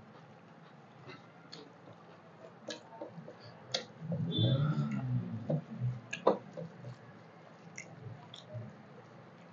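Two people eating rice and dal by hand from metal plates: wet squishing as fingers mix the rice, chewing, and scattered small clicks and taps, with a louder stretch of eating sounds about four seconds in.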